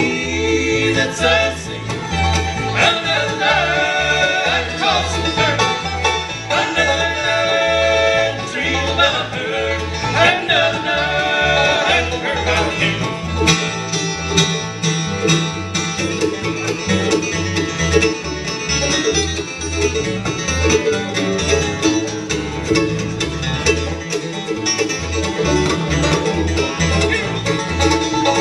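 Bluegrass band playing live on acoustic guitar, upright bass, mandolin, fiddle and five-string banjo, over a steady thumping bass beat. Gliding fiddle lines stand out in the first half, and dense quick picking fills the rest.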